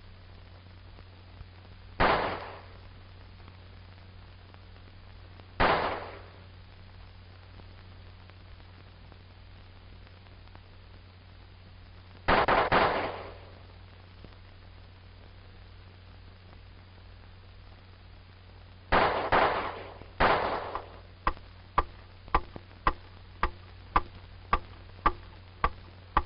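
Sport pistol shots fired one at a time a few seconds apart, each sharp crack followed by a short echo in an indoor shooting range. Near the end comes a quicker run of lighter clicks, about two a second.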